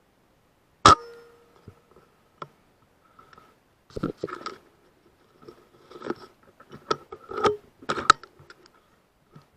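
A PCP air rifle fires once about a second in: a sharp crack with a brief metallic ring after it. Then a series of clicks and knocks from the rifle being handled.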